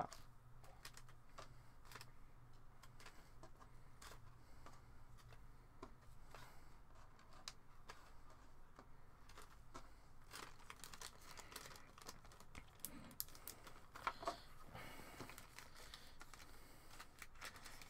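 Faint crinkling of clear plastic bags being handled and unwrapped, with scattered light clicks throughout.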